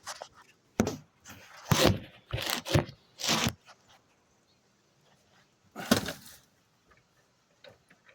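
Junk shifting in a dumpster while someone reaches for an air conditioner's power cord: a handful of short scrapes and knocks, the loudest about two and three seconds in, then a quiet stretch and one more near six seconds.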